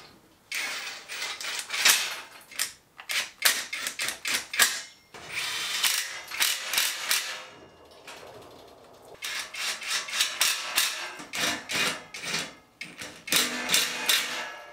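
Bolts being fastened into aluminium roof-rack crossbars with a hand driver and a cordless drill: rapid ratchet-like clicking and short whirring spurts, with metal hardware rattling and a short lull around the middle.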